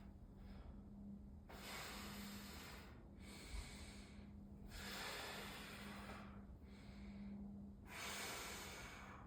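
A person breathing in and out through the nose in slow, deliberate breaths, a rush of air every second or two, over a faint steady hum.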